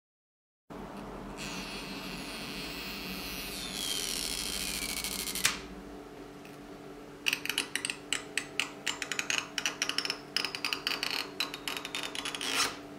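Stretch-release adhesive strip being pulled out from under an iPhone XR battery: a steady scratchy hiss with falling squeaks for about four seconds, then a quick run of sharp crackling ticks as the strip stretches and comes free.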